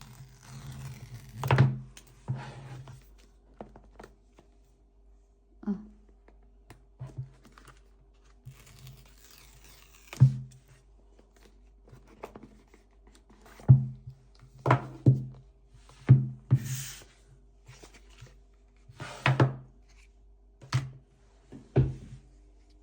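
Packaging of a phone box being handled on a hard surface: about a dozen irregular thunks and knocks, with stretches of tearing and crinkling of wrap or film.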